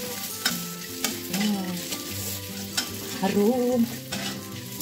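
Meatball and sausage slices being stir-fried in a non-stick wok: oil sizzling, with repeated quick scrapes and taps of the spatula against the pan as it tosses them.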